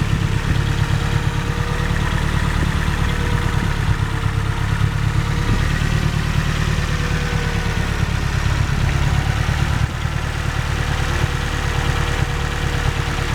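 Nissan Silvia's SR20DET turbocharged four-cylinder engine idling steadily, with no tappet tick audible after new camshafts, rocker arms and hydraulic lash adjusters were fitted.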